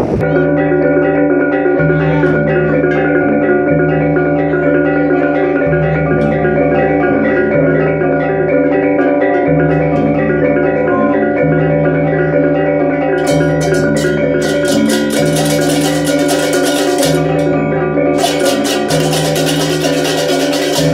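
Balinese gamelan music: bronze mallet-struck metallophones ring a steady interlocking pattern over low notes that change about every two seconds. A rapid, dense clatter of small cymbals joins about thirteen seconds in.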